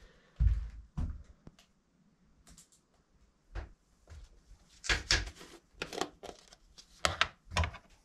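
A couple of footsteps thud on wooden floorboards. Then comes a run of knocks and clatters as a mug, lids and containers are picked up and set down on a wooden counter.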